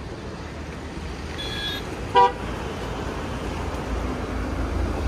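Steady road traffic noise with a faint horn, then one short, loud vehicle horn toot about two seconds in.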